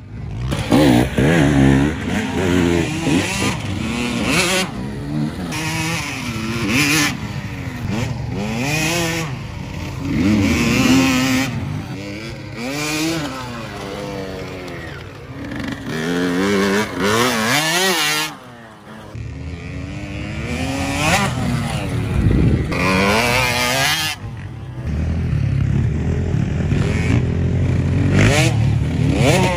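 Small kids' motocross bike engine revving up and down over and over, the pitch rising and falling every second or two as the throttle is worked, with a brief drop in the revs about two-thirds of the way through.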